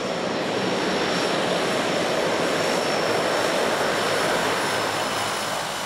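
Twin-turboprop plane (a de Havilland Canada DHC-6 Twin Otter) rolling past on the runway: steady propeller and engine noise with a thin high turbine whine, swelling through the first second and easing a little near the end.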